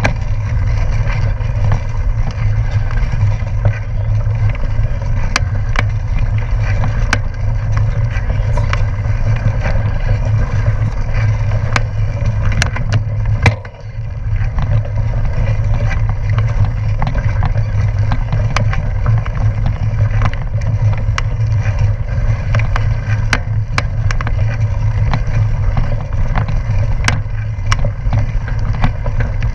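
Gravel bike rolling fast on a dirt and gravel road, with wind buffeting the action camera's microphone in a deep, steady rumble. Frequent sharp ticks of gravel and bike parts run over it. The rumble drops out briefly about halfway through.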